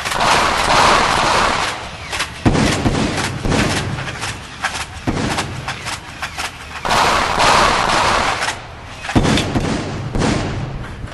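Battle gunfire: bursts of rapid shots, with two louder rushing blasts, about a second in and around seven seconds in.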